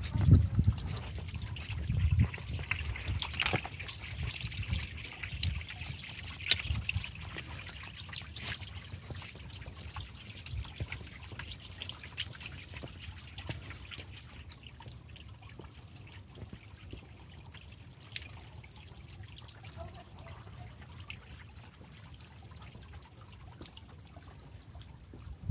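Water trickling from the carved onyx spheres of a stone fountain sculpture, falling in thin streams and splattering with many small splashes, louder in the first several seconds, over a low rumble.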